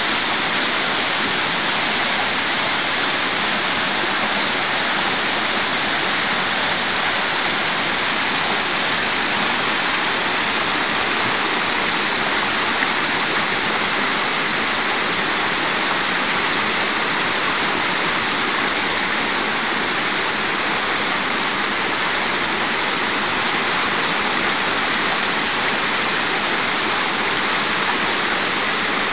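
Waterfall and stream water rushing steadily over rocks, an even, unbroken noise.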